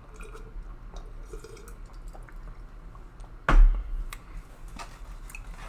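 Faint eating and handling noises, with one sharp thump about three and a half seconds in.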